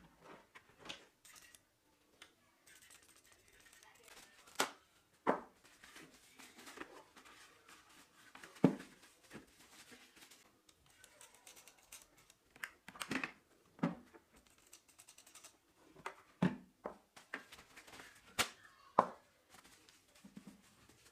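Paper towel rubbing and crinkling over a motorcycle helmet's shell and visor, with scattered sharp clicks and knocks from handling the helmet.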